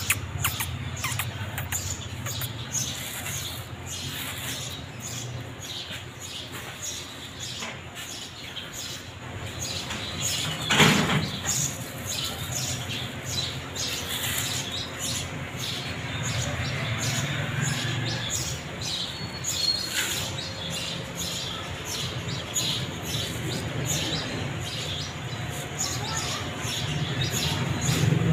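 Kitten crunching dry cat food: a quick, irregular run of small crisp crackles over a steady low hum. About eleven seconds in comes one louder, short noise.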